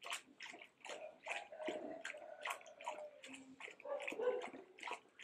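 A wooden pole plunged and stirred in a plastic barrel of indigo dye. The liquid sloshes and splashes in short, irregular strokes, about two or three a second.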